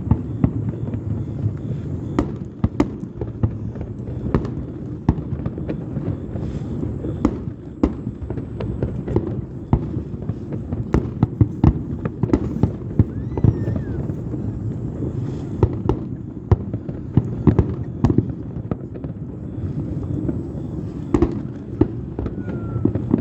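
Aerial fireworks display bursting in quick succession: many sharp bangs and crackles over a continuous low rumble.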